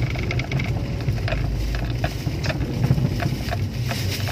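A car driving slowly, heard from inside the cabin: a steady low engine and road rumble, with scattered light clicks and rattles.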